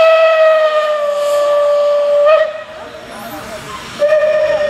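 Steam whistle of the 1911 kkStB class 310 express steam locomotive: one long steady blast that stops about two seconds in, then a second blast starting near the end, over a hiss of steam.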